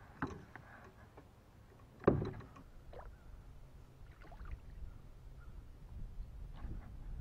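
A kayak being moved off and paddled on calm water: a sharp knock about two seconds in, then lighter knocks and water noise.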